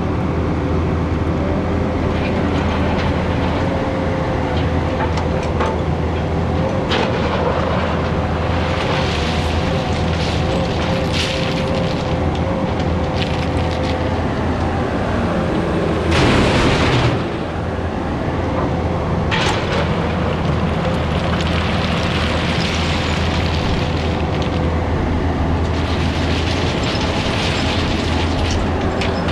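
Diesel engine of heavy paving equipment running steadily under load, with a constant whine over the low engine hum. A louder rush comes about sixteen seconds in.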